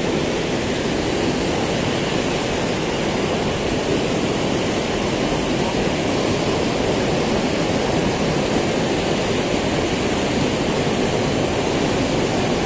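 Fast stream water rushing steadily over rocks and through small cascades close by.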